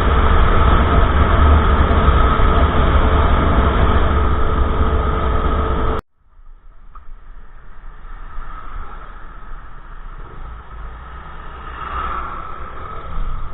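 Honda Monkey minibike's small four-stroke single engine running while riding, mixed with a steady rumble of wind on the microphone. About six seconds in it cuts off abruptly, leaving a much quieter steady rumble.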